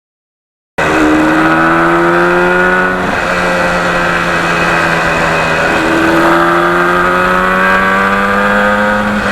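1977 Yamaha RD400's two-stroke parallel-twin engine accelerating under way, its pitch rising. It drops at a gear change about three seconds in, then climbs again from about six seconds. It cuts in suddenly just under a second in.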